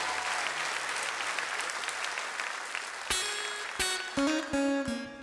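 Studio audience applause dying down, then an acoustic guitar starts picking single plucked notes about three seconds in: the opening of a song.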